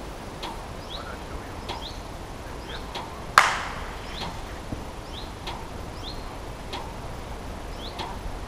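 A single sharp hand clap about three and a half seconds in, briefly ringing through the woodland, over small birds repeating short rising chirps about once a second.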